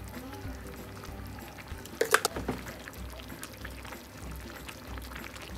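Liquid being poured, with a brief cluster of sharp clicks about two seconds in, over soft background music.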